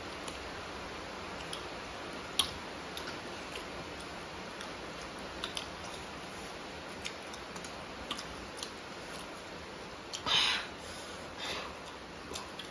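Hands eating from stainless steel plates: scattered light clicks and ticks of fingers and food against the metal, over a steady low hiss. A short noisy burst comes about ten seconds in, with a fainter one a second later.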